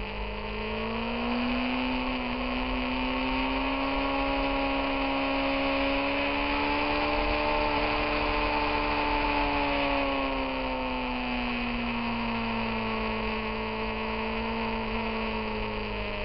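Motorcycle engine heard from the moving bike, its pitch climbing over the first couple of seconds, holding and edging higher, then easing down gradually from about ten seconds in, over a steady hiss.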